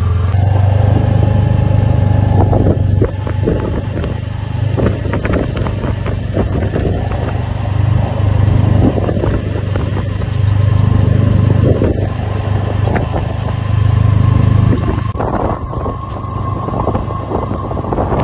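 Kubota Sidekick utility vehicle driving over rough pasture: a steady low engine drone that swells and eases, with frequent rattles and knocks from the bumps.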